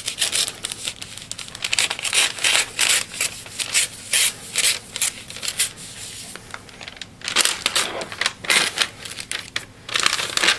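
Brown paper mailer being cut and torn open with a Gerber pocket knife: paper crinkling, crackling and ripping in rapid short bursts, with a brief lull a little past the middle.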